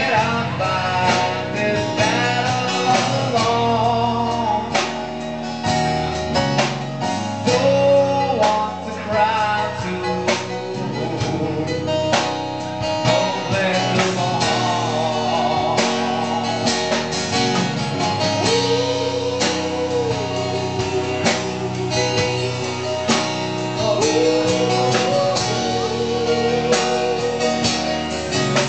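Live band playing a song: guitars and a singing voice over a steady beat.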